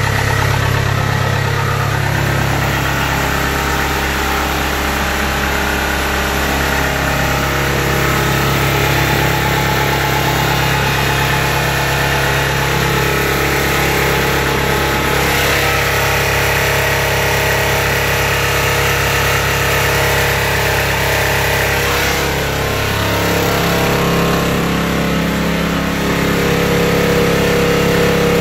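Kubota DC70 combine harvester's diesel engine running steadily, heard up close at the open engine bay. Its note shifts slightly about three-quarters of the way through.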